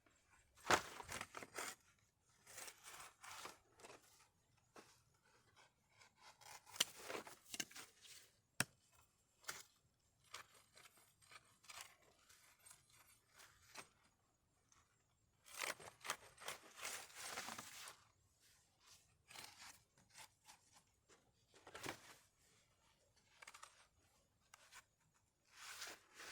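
Intermittent rustling and scraping of things being handled up close, in short bursts of a second or so, with a single sharp click about eight and a half seconds in.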